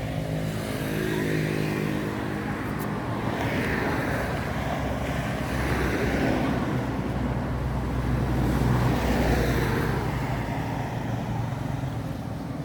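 Road traffic: a motor vehicle's engine hum with the noise of passing traffic, which swells and fades about three times.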